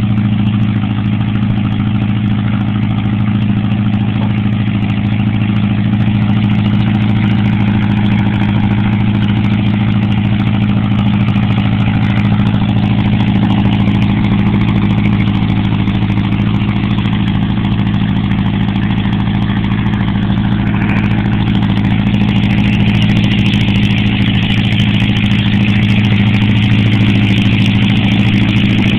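Volkswagen air-cooled engine of a homebuilt airplane running at a steady speed on a ground test run, growing a little louder and brighter in the last several seconds.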